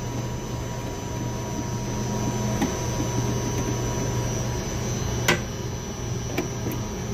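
Steady electrical mains hum with a few sharp clicks and taps from hands working the drive's front panel and screws, the loudest click about five seconds in.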